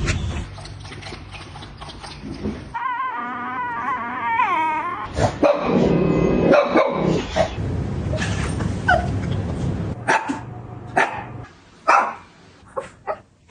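Shih Tzu dog vocalising: a wavering, high whine a few seconds in, then a run of short, sharp yips and barks near the end.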